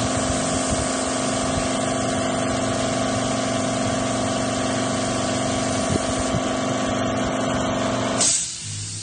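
Air compressor running with a steady hum under the continuous hiss of an air spray gun spraying paint. Near the end there is a brief sharp blast of air, and then the hum and hiss cut off abruptly.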